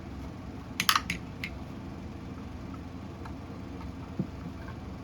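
A quick cluster of sharp clicks and clacks about a second in, then a single soft knock near the end: screws, a screwdriver and plastic housing parts being handled while a septic air pump is taken apart.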